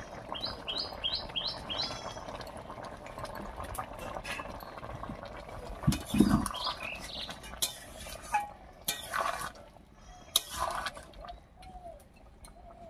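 Prawn and jackfruit curry bubbling at a simmer in a metal karai, then a metal spatula stirring and scraping the pan with clinks and a loud low thump about six seconds in. A bird gives a quick run of about five chirps near the start.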